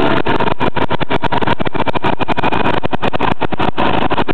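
1.6-litre Volkswagen turbodiesel four-cylinder running steadily on an engine stand, with a fast, even diesel clatter.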